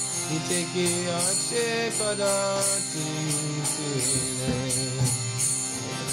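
Background devotional music: a melody over a steady jingling beat, about two strokes a second.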